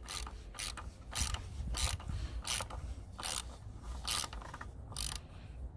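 Socket ratchet clicking in short bursts, one on each back-swing of the handle, about nine times at an even pace, as the 3.6 Pentastar's oil filter housing cap is tightened down.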